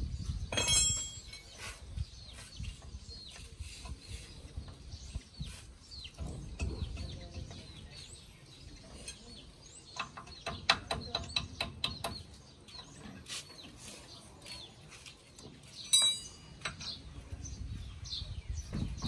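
Small metal parts and hand tools clicking and clinking against the bare front-axle steering knuckle of a Mahindra Bolero 4x4: a quick run of light clicks around the middle and one loud ringing clink a few seconds later.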